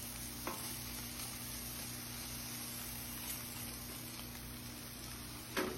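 Chicken tenderloins and beef hot dogs sizzling steadily on a charcoal grill, with a faint click about half a second in and a short, louder sound near the end.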